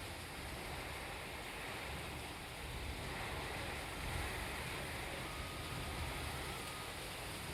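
Steady heavy rainfall: an even hiss of rain with a low rumble beneath it.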